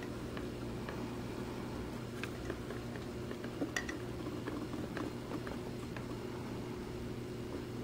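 Steady hum and bubbling water of a running aquarium tank, with scattered light clicks and taps and a sharper pair of clicks about halfway through.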